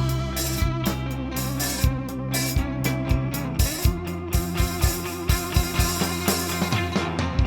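Instrumental rock music: guitars over a held bass line and a drum kit keeping a steady beat, with no vocals.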